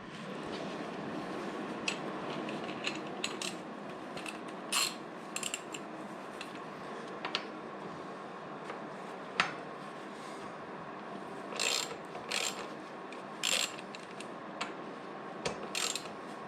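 Ratchet wrench loosening the axle clamp bolts at the bottom of a motorcycle's front fork leg: scattered sharp clicks and short runs of ratcheting, irregularly spaced, over a steady background hiss and hum.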